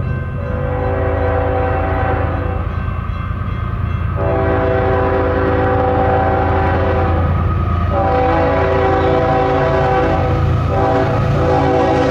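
Diesel freight locomotive's multi-chime air horn blowing a series of long blasts with short breaks, louder from about four seconds in as the train approaches. A steady low rumble from the train runs underneath.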